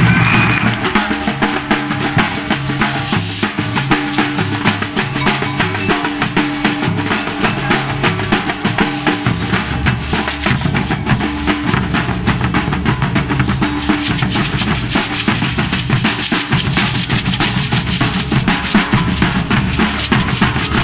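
Street band of bass drums and snare drums playing a fast, steady rhythm, with a low melody stepping between notes underneath.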